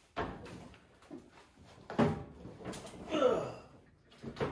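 Several separate thumps and a short creak from a John Deere Sabre riding mower's seat and body as a person climbs on and sits down; the engine is not running.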